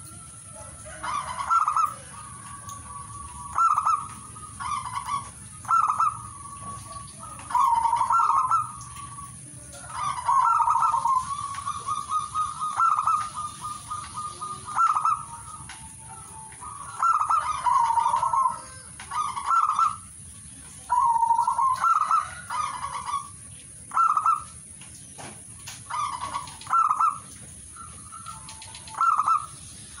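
Zebra dove (perkutut) singing: short phrases of staccato cooing notes repeated every second or two, with one longer run of rapid pulsing coos about ten seconds in.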